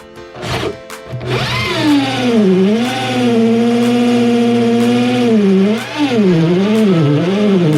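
Background music: a sliding, wavering lead melody over a steady low drone, holding one long note in the middle before it wavers up and down again near the end.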